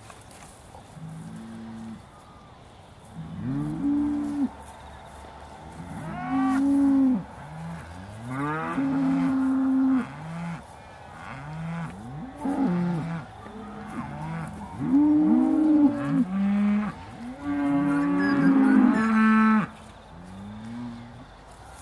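Several Aussie Red dairy cows mooing again and again, their calls overlapping at higher and lower pitches, each rising at the start and then held.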